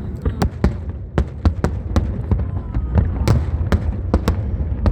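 Aerial fireworks bursting in quick, irregular succession, about three or four sharp bangs a second over a continuous low rumble.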